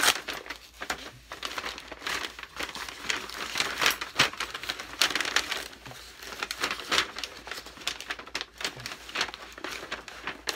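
White packing wrap crinkling and crackling as it is unwound and pulled away by hand, in irregular bursts of rustling.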